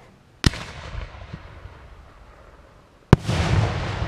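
Fireworks going off: two sharp bangs about two and a half seconds apart, each trailing off in echo. The second is followed by a louder, longer rumble.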